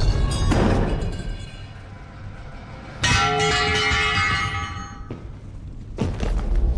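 Film fight sound effects: a heavy thud at the start, then about three seconds in a metal object clangs and rings like a bell for about two seconds before cutting off sharply. Another heavy thud comes near the end, with background score underneath.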